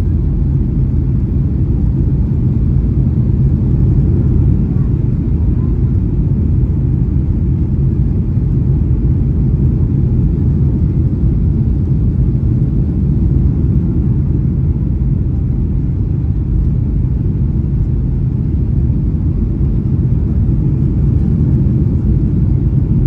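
Steady low rumble of Boeing 737-800 cabin noise, the engines and airflow heard from inside the passenger cabin, holding even throughout.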